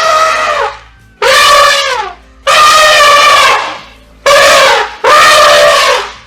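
Elephant trumpeting: a rapid series of loud, brassy calls, about a second each with short gaps between, several sliding down in pitch as they end.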